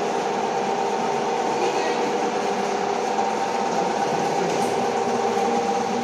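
Steady machine hum and fan whir from a running high-temperature atmosphere furnace, with several held tones over an even hiss.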